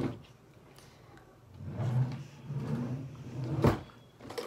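Someone rummaging through a drawer, with a faint low voice over it, and one sharp knock about three and a half seconds in.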